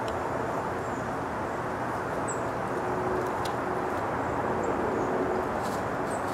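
Steady outdoor background rumble and hiss, with a few faint high chirps and soft ticks over it.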